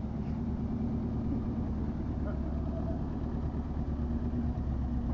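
UAZ-452 'Bukhanka' van's four-cylinder petrol engine running steadily as the van drives slowly past on wet asphalt.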